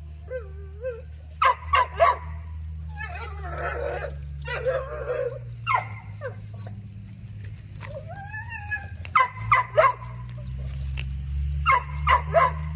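American pit bull terrier barking in quick bursts of three or four, with high whines in between, over a low steady hum.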